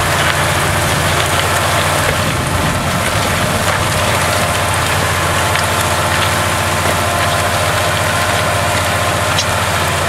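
County 1884 tractor's diesel engine running steadily under load while pulling a multi-furrow plough, with a steady hiss over the engine.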